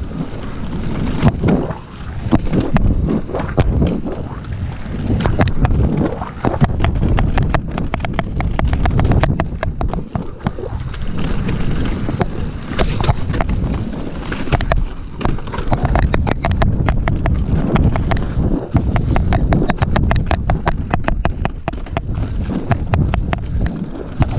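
Mountain bike riding down a rocky downhill trail: the tyres rumble over rock and the chain and frame rattle in rapid, irregular clicks, with wind buffeting the microphone.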